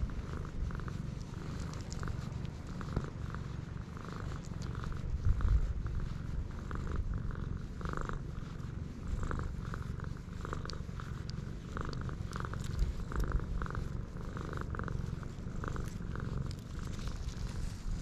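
A cat purring steadily as its chin and cheek are scratched, a low continuous rumble that rises and falls with its breathing.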